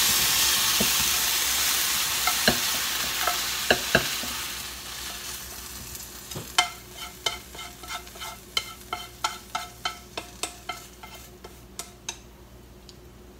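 Stir-fried chicken gizzards still sizzling in the hot frying pan, the sizzle fading over the first five seconds as they are scraped out with chopsticks. From about six seconds in comes a quick run of sharp clicks, about three a second, as the chopsticks knock and scrape against the pan while it is emptied into a bowl.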